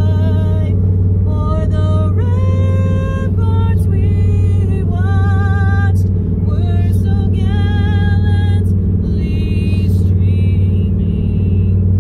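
A high solo voice singing a slow melody with wide vibrato, held notes and slides between them, over the steady low drone of the fireboat's engines.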